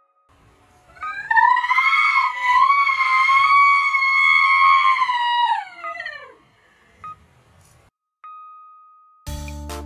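A woman's long, drawn-out scream, held for about five seconds with a slight waver and falling away in pitch at the end. Near the end, piano music begins.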